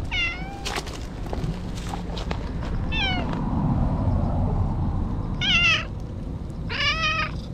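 An orange tabby-and-white stray cat meows four times, short friendly greeting calls made while it is being stroked.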